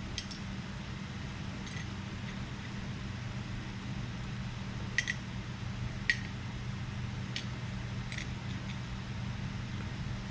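Small brass pieces clicking and clinking as they are handled and fitted into a metal part, a few scattered light taps, the clearest two about five and six seconds in, over a steady low hum.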